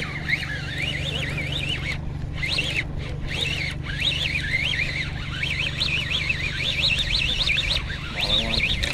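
Line-counter baitcasting reel being cranked fast to bring in a hooked striped bass. Its gears give a wavering whine that rises and falls with the turns of the handle, over a steady low hum.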